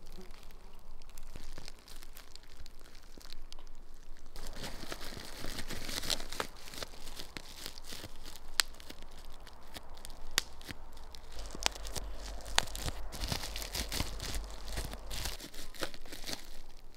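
Bubble-wrap plastic bag crinkling and rustling as it is handled in the hands, louder from about four seconds in, with a few sharp cracks.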